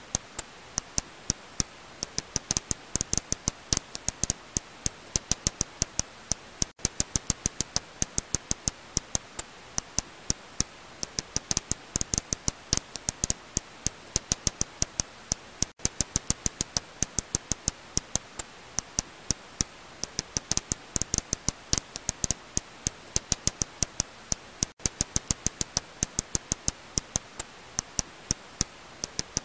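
Serotine bat echolocation calls, made audible by a bat detector or slowed-down recording, heard as rapid dry clicks in irregular runs over a steady hiss. The recording breaks off briefly about every nine seconds.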